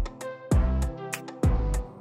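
Background instrumental music: held notes over a low beat about once a second.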